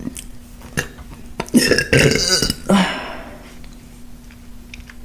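A woman's long, loud burp, starting about one and a half seconds in and lasting well over a second, after a few small clicks.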